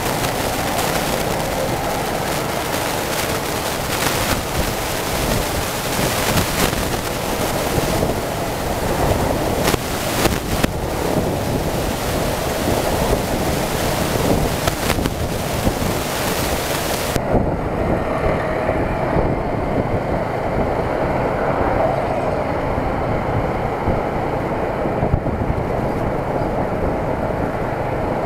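Steady wind rush over the microphone mixed with the engine and road noise of a moving tuk-tuk, a motorcycle pulling a passenger carriage, with a few brief knocks from the ride. About two-thirds of the way through, the high hiss drops away suddenly, leaving a duller rumble.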